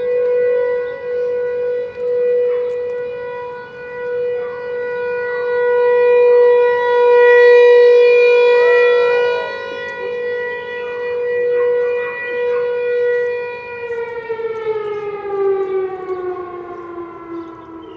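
Tornado warning siren sounding its weekly test: a single steady, wailing tone that swells and fades in loudness. About fourteen seconds in it winds down, the pitch sliding steadily lower.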